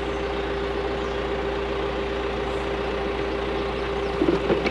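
Machine engine idling steadily with a constant hum, with a few light knocks near the end.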